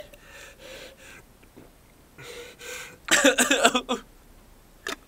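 A man drinking water from a plastic bottle with noisy gulping breaths, then a loud vocal gasp about three seconds in, mimicking how little kids drink water. A sharp click sounds near the end.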